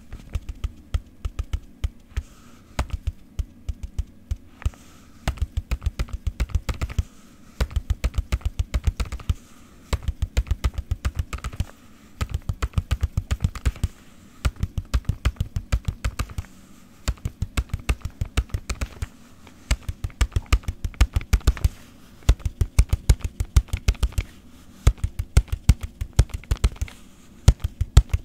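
Quick rhythmic tapping in runs of about two seconds with short pauses between, each tap with a low thud.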